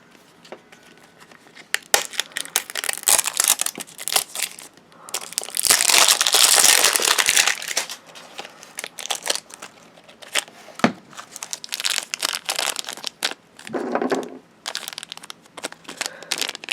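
Plastic and paper toy packaging crinkling and tearing as an LOL Surprise ball's wrapped layers are unwrapped by hand: scattered crackles, with a loud stretch of crumpling about six seconds in.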